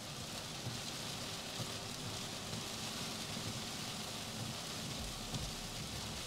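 Heavy rain pelting a vehicle's windshield and roof, heard from inside the cabin while driving: a steady, even hiss.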